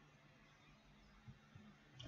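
Near silence: faint room tone with a low steady hum, and two faint soft taps a little past the middle.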